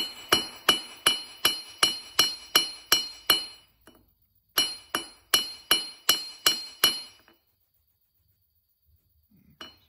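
Ball-peen hammer flattening bare copper wire on a steel anvil block: a steady run of ringing metal blows, about three a second. There is a short break about four seconds in, then a second run of blows, which stops about seven seconds in.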